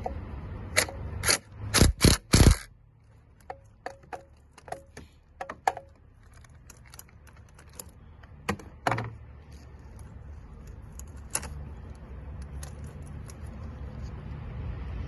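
Hand tools clicking and clinking against metal bolts and fittings while a pipe is unbolted in a diesel engine bay: a few loud metallic knocks in the first two or three seconds, then lighter ticks and scattered clanks over a low steady hum.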